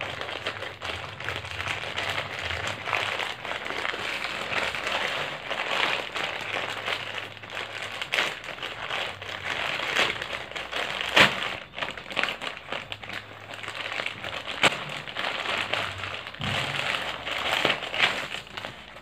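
Grey plastic courier mailer bag being handled and torn open by hand: steady crinkling and rustling of the plastic with many sharp crackles, the loudest about eleven seconds in.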